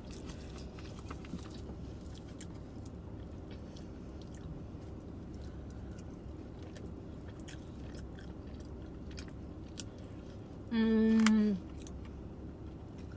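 Close-up chewing of a mouthful of food, with faint wet mouth clicks. About eleven seconds in comes one short hummed "mmm" that holds its pitch and then drops off at the end.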